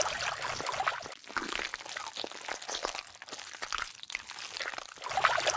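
Wet muddy water sloshing and squelching: a run of small irregular splashes and drips as a body slides through shallow mud. It gets louder again near the end.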